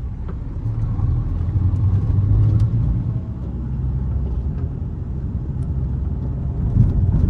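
Steady low rumble of a Volkswagen Saveiro pickup driving, heard from inside the closed cabin: engine and road noise. The intermittent creak from the cargo bed does not stand out.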